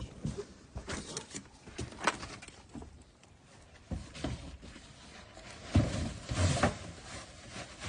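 Plastic sheeting and a cardboard box being handled and fitted over a mini-split outdoor condenser unit: irregular rustling, scrapes and knocks, the loudest cluster about six seconds in.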